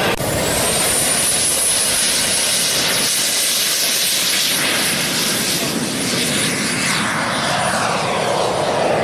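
Radio-controlled model aircraft engines running over a broad rushing sound, with a thin high whine that rises over about the first two seconds and then holds steady.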